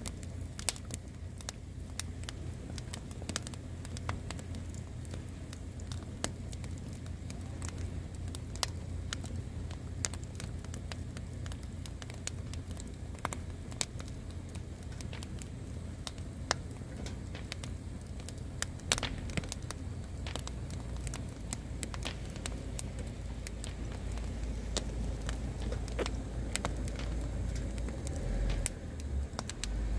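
Wood fire crackling in a metal fire pit, with irregular sharp pops, over a steady low rumble that grows louder near the end.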